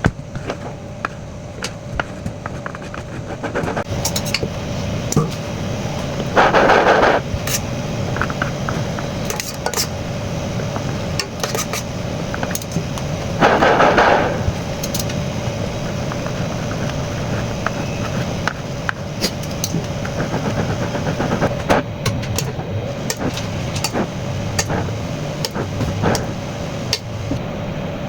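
Cake-decorating turntable rattling like machine-gun fire as it spins, in two loud bursts of about a second each, with scattered clicks and knocks between them over a steady hum.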